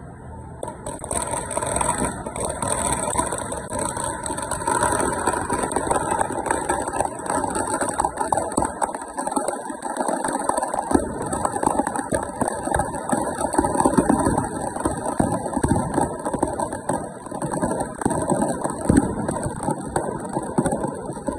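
Ravana effigy's firecrackers going off: dense, continuous crackling and popping, with rapid clicks packed close together.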